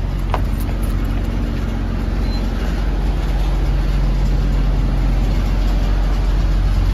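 Diesel semi-truck engine idling with a steady low rumble, and a single sharp click a moment in.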